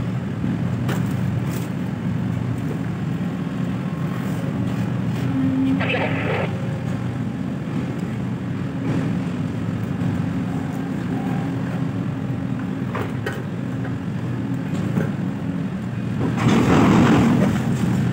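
Steady low drone of the port's cargo-handling machinery, the container crane and ship's plant, during container discharge from the hold. A short burst of noise comes about six seconds in, and a louder one near the end.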